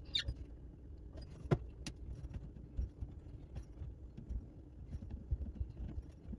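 Small clicks and knocks of a hand turning the angle-stop shutoff valves under a kitchen sink to close off the water supply, over a low rumble of handling noise. A sharp click about one and a half seconds in is the loudest, with a second one soon after.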